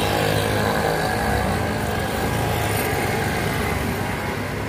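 Motor vehicle engine running steadily, with street traffic noise around it.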